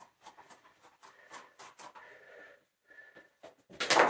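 Light, unweighted segmented plastic hula hoop spinning around the waist, a quick run of light clicks and rattles, then a louder clatter near the end as it drops to the floor.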